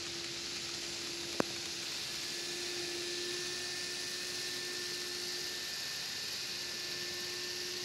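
N scale model freight train running on track: a steady hiss with the steady hum of the model diesel locomotives' small electric motors, and a single sharp click about a second and a half in.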